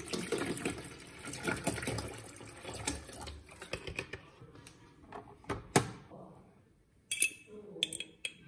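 Water poured from a plastic bottle into the water tank of a De'Longhi espresso machine, splashing for about three seconds. Then scattered knocks and clicks, the loudest about six seconds in, and a cluster of clicks near the end.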